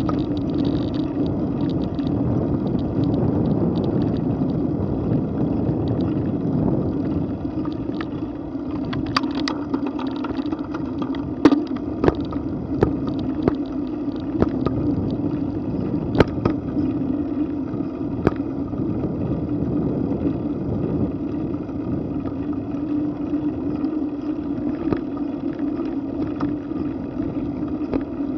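Steady wind and road noise from riding a bicycle along a paved street at about 10 mph, with scattered sharp clicks and knocks, most of them between about 9 and 18 seconds in.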